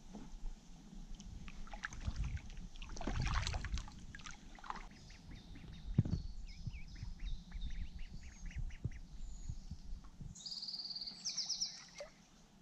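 Paddle strokes splashing in the water, then mallards calling in a quick run of short notes. A small bird gives a rapid high trill near the end.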